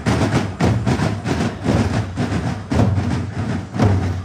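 Parade drum corps of bass drums and snare drums beaten in a steady, loud marching rhythm, about three to four strokes a second, with deep bass-drum hits.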